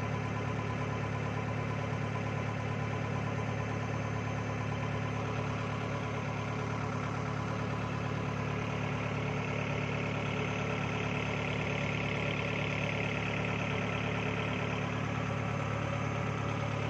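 Engine running steadily at an even speed, heard close up from on board the vehicle.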